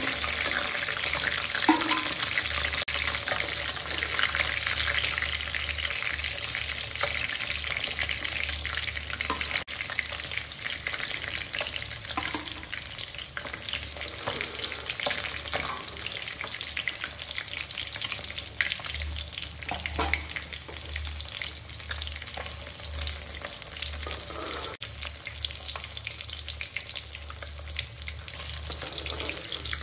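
Masala-coated rohu fish pieces frying in hot mustard oil in a kadai: a steady dense sizzle that thins near the end. A steel spatula clinks and scrapes against the pan several times as pieces are lifted out.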